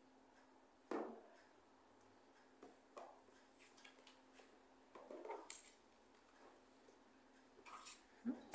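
Paper cards being picked up, slid and laid down on a table: a few faint taps and rustles over near silence.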